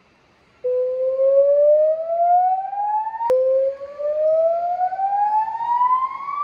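Electronic river warning siren sounding its warning signal through Bosch LBC-3406 PA horn loudspeakers. It gives two rising whoops, each climbing in pitch for about three seconds. The first starts about half a second in, the second follows straight on with a click, and the tone cuts off near the end.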